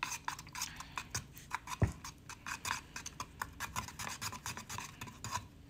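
A small carving tool scraping and stirring thick glaze in a small container, with many quick, irregular scratches against the bottom and sides and one louder knock about two seconds in: settled glaze being mixed back up.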